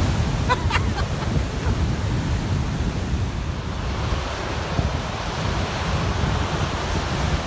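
Heavy storm surf breaking and churning against a rocky shore, with strong wind buffeting the microphone in a steady low rumble.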